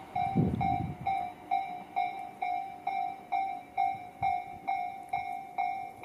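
Japanese level-crossing warning bell ringing its repeating two-per-second 'kan-kan' tone while the crossing is active. In the first second, low rumbling thuds come from the wheels of a departing Tobu Tojo Line train.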